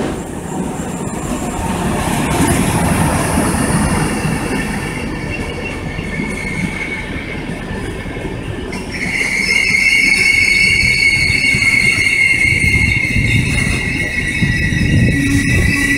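Long rake of intercity coaches rolling slowly past, a continuous rumble of wheels on rails; about nine seconds in a high, steady wheel squeal sets in and keeps going.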